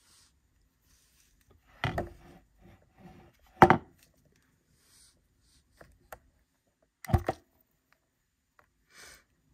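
A large metal cross pendant and its chain being handled, knocking and clattering on a hard board three times, the loudest about a third of the way in, with a few light ticks between.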